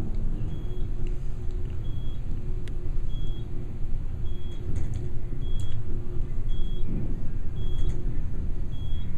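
Passenger elevator car travelling, a steady low rumble with a faint hum, while a short high electronic beep sounds about once a second.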